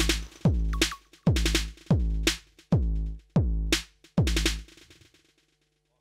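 Electronic drum voices from a Eurorack modular synthesizer, sequenced by the Erica Synths Drum Sequencer. Deep kick-drum hits drop in pitch as they ring, one every half second to second. High hi-hat ticks stop about a second in, and the last kick rings out a little after four seconds, ending the pattern.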